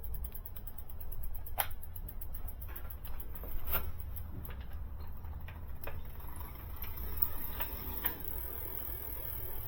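Scattered sharp clicks and taps, loudest about a second and a half in and again near four seconds, over a steady low rumble.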